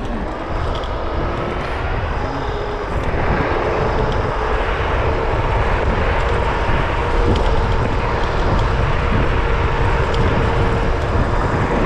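Varla Pegasus electric scooter ridden fast downhill: wind buffets the microphone in a dense rumble, with a steady whine over it. The sound grows a little louder about three seconds in.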